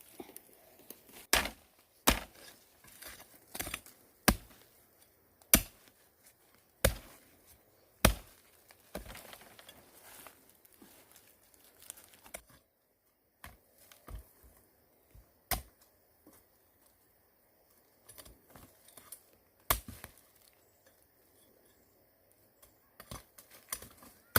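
A series of sharp chopping knocks, irregularly spaced, about a dozen strong strokes with gaps of one to several seconds and lighter rustling in between.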